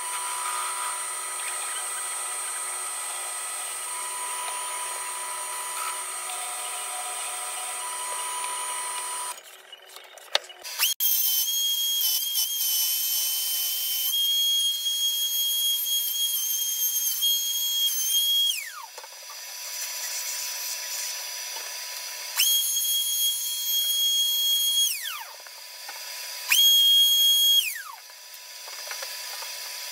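A drill press motor running steadily for about nine seconds. Then a Triton router is switched on and runs with a high, steady whine, winding down with a falling pitch when switched off; it is run twice more for a few seconds, each run ending in the same falling spin-down.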